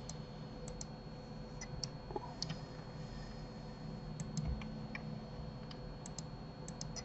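Light clicks of a computer keyboard and mouse, a dozen or so short taps in irregular clusters, over a faint steady electrical hum.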